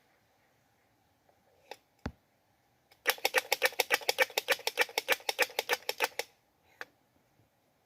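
Squirrel mating call: a rapid rattling chatter of sharp clicks, about ten a second for roughly three seconds, with a few single clicks before and after.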